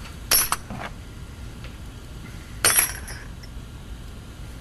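Loose metal drill bits clinking against one another and the workbench, in two short clusters of clicks: one just after the start and one a little past halfway.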